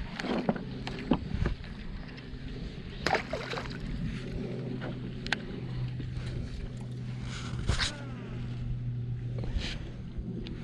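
A small boat's motor running steadily with a low hum that grows louder about halfway through, with scattered knocks and clicks of gear handled in the boat.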